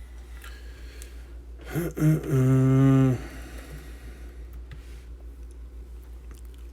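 A man's short wordless vocal sound about two seconds in, held on one low pitch for about a second, over a steady low background hum.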